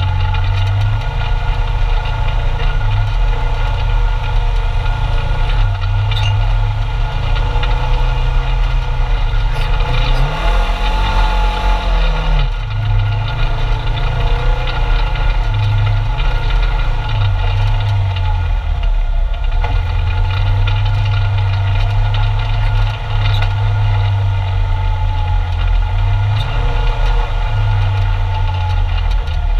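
Polaris RZR 900's parallel-twin engine running at low trail speed, heard from inside the cab, with a steady drone that swells and eases as the throttle changes. About ten seconds in, the engine pitch rises and falls once in a short rev.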